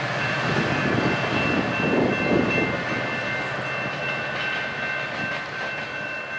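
GO Transit train with an MP40 diesel-electric locomotive pulling away: engine running and wheels rolling on the rails, loudest about two seconds in. Steady high-pitched tones sound over it throughout.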